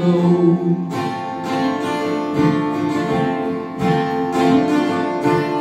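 Acoustic guitar strummed in a steady rhythm during an instrumental bar of a live song, with no singing.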